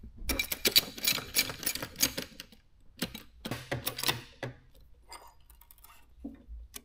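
Rapid metallic clicking and clinking as a motorcycle shock absorber and its coil spring are worked in a spring compressor. Two busy spells of clicks in the first few seconds, then a few scattered taps.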